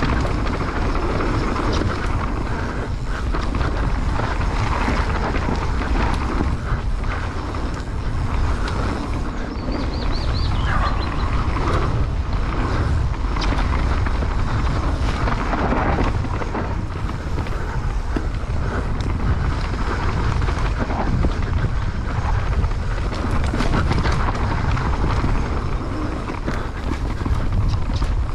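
Mountain bike riding down a dirt trail: steady wind buffeting the camera's microphone, with tyre noise and scattered clicks and rattles from the bike over rough ground.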